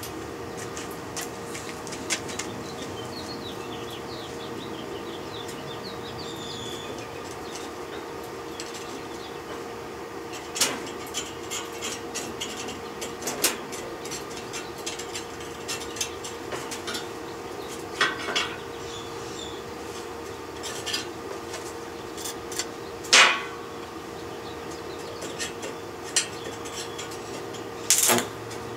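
Scattered metal clinks and knocks from handling a stick welder's electrode holder and steel parts on a steel welding table, over a steady hum. Near the end the arc strikes with a sudden crackle. Birds chirp faintly in the first few seconds.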